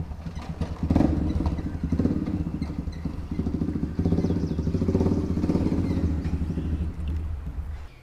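Low, steady engine rumble of traffic passing, heard from beneath a concrete road bridge; it swells about a second in and again about four seconds in, then cuts off suddenly near the end.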